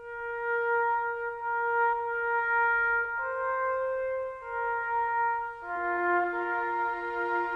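Orchestral film score music: brass led by trumpet holds long sustained notes. The line steps up a note about three seconds in and back down, and a lower second voice joins about five and a half seconds in.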